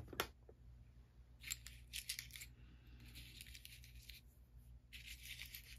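Faint, intermittent rustling and light scraping of small items being handled by hand, in short bouts of about a second each.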